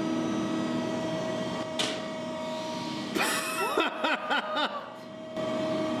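The hydraulics of a 320-ton Finn-Power radial crimping machine hum steadily as its eight dies close on a rubber hockey puck, with a single click about two seconds in. From about three seconds in, a run of short squeals rising and falling in pitch lasts about two seconds as the puck is squeezed.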